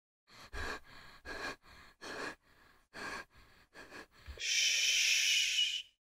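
A person breathing hard in about eight uneven gasps. About four seconds in comes a loud hiss lasting about a second and a half that cuts off suddenly.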